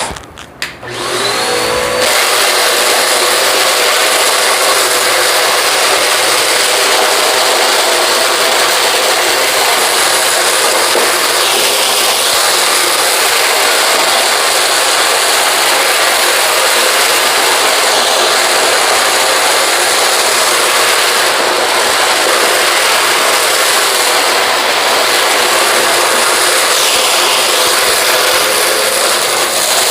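Dirt Devil VersaVac vacuum cleaner motor starting up with a rising whine, then running steadily at full speed while it vacuums up dirt and kitty litter.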